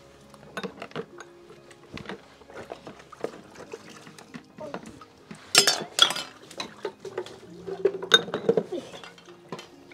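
Bowls and spoons being washed by hand in a basin, clinking and knocking against each other in a string of short clatters, loudest about five and a half to six seconds in.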